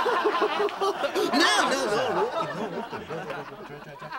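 Several people laughing and chuckling together, loud at first and dying down near the end.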